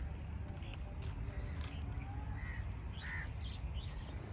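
Birds calling from the trees: short calls about a second apart, over a steady low outdoor rumble.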